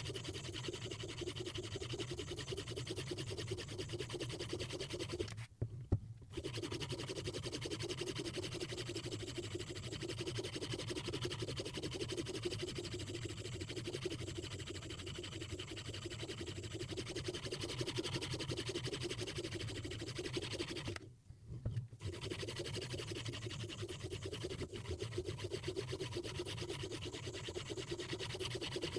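Hapstone 4000 semi-natural quartz sharpening stone rubbed back and forth along a Mora Bahco knife's edge in a Hapstone RS guided sharpener: a steady, rapid scraping. It breaks off twice for a moment with a click, about six seconds in and about twenty-one seconds in.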